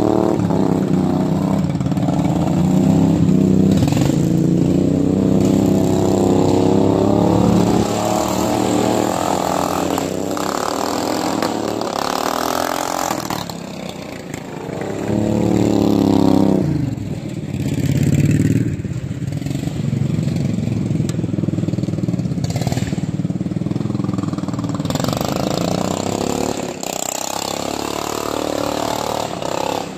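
Riding lawn mower's V-twin engine running hard and revving up and down as the mower is driven. The engine note falls and climbs again several times, dropping lowest about halfway through.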